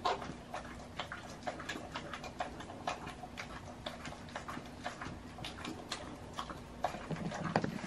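Dog licking peanut butter from an enamel bowl: quick, irregular wet tongue clicks, a few a second.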